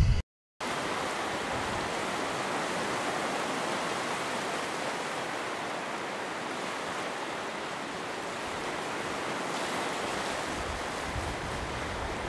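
Steady, even rushing noise, unbroken and without any tone or rhythm, starting after a short cut to silence just after the start.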